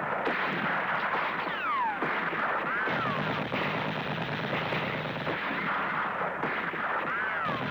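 Dense, loud crackling noise like gunfire or explosions, with three falling whistles through it; it cuts off abruptly at the end.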